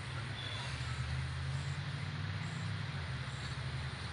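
Low, steady engine rumble of a motor vehicle, growing a little stronger about half a second in and easing off near the end.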